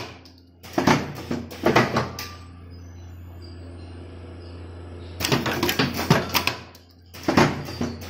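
Wire cutting machine's mechanism working with a steady low hum, breaking into three bursts of rapid clicking and knocking: near the start, about five seconds in and near the end.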